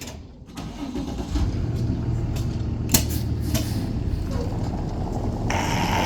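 Delivery box truck's engine starting and then running steadily with a low rumble; a louder hiss joins about five and a half seconds in.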